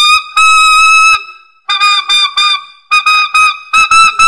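P. Mauriat alto saxophone with a metal mouthpiece playing altissimo C sharp: a short note, then a note held for nearly a second. After a pause come about ten short, separately tongued notes at the same high pitch, in three quick groups.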